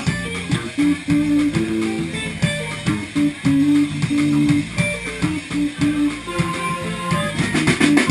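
Live band playing an instrumental passage, with electric guitar and bass guitar riffing in a steady rhythm.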